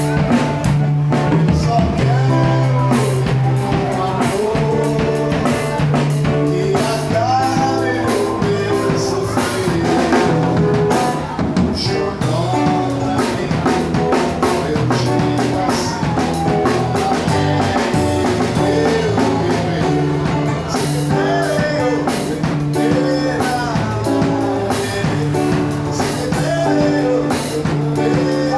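A band playing a song: a singer's voice over a drum kit beating a steady rhythm, with the music continuous and loud throughout.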